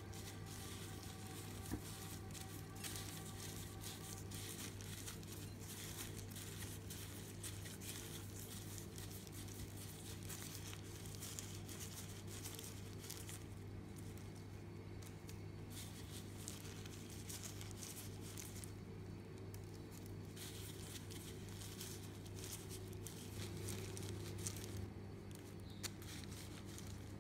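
Sesame seeds rustling and a disposable plastic glove crinkling as dough balls are rolled and pressed in a bowl of seeds, in an irregular, continual patter over a steady low hum.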